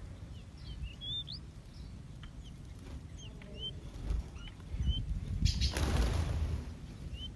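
Small aviary birds giving short, separate chirps that slide up and down in pitch. About five seconds in there is a louder rushing burst of wing flapping lasting over a second.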